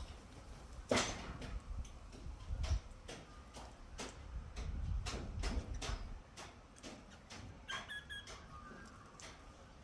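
Small birds close to the microphone: irregular sharp clicks and taps, and one short chirp about eight seconds in.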